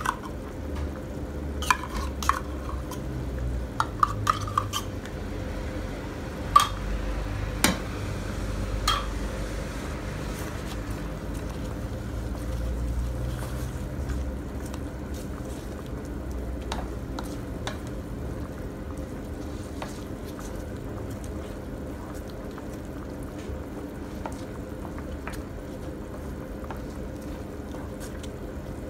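Wooden spoon stirring a thick cream béchamel sauce in a metal frying pan, with sharp knocks of the spoon against the pan in the first nine seconds or so, then steadier stirring.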